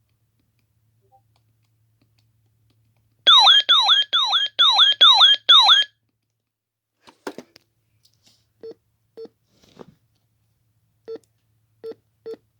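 Electronic siren tone from a radio, a fast rise-and-fall wail repeating a little over twice a second for about two and a half seconds, then cutting off. A few clicks and six short single beeps follow.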